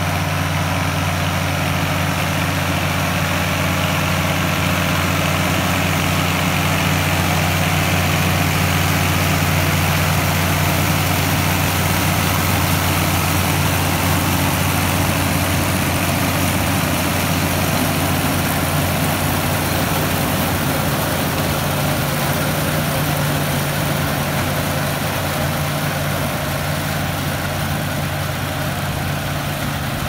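A tractor's diesel engine running steadily, pulling a New Idea 2-row pull-type corn picker, with the picker's gathering and husking machinery working through the corn as it harvests ear corn.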